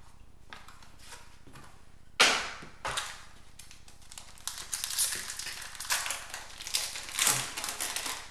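A trading card pack's wrapper being torn open and crinkled by hand: a sharp crackle about two seconds in, then a long run of crinkling near the end.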